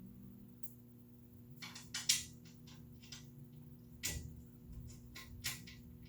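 Irregular clicks and clinks of M10 bolts and washers being handled and fitted into a table saw's front rail, with sharper metal knocks about two, four and five and a half seconds in.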